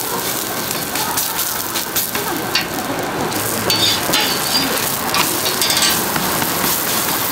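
Korean jeon (savoury pancakes) sizzling as they fry in oil, a steady hiss with a few brief sharp noises over it.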